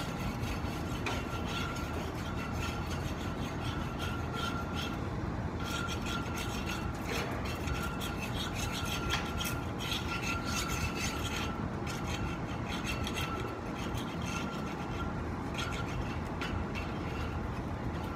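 Repeated hand scraping and rubbing strokes on a surface being prepared for paint, over a steady low hum.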